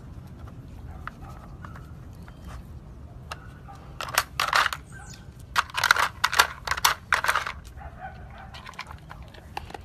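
A golden retriever working a plastic treat-puzzle toy: scattered clicks of the plastic pieces, then two runs of loud, noisy rustling bursts, about four seconds in and again around six seconds, as it paws and noses at the toy.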